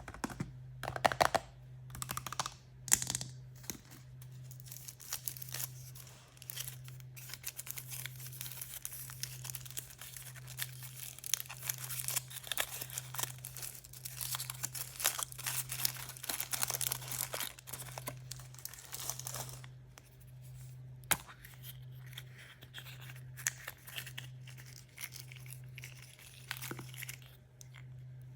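Crinkly surprise-toy packaging being torn open and crumpled by hand. A few sharp snaps come in the first three seconds, then dense crinkling through the middle that thins out toward the end.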